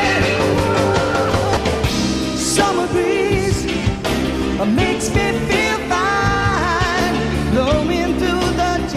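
Blue-eyed soul band playing a song: a male lead vocal sung over acoustic guitar, bass and drums.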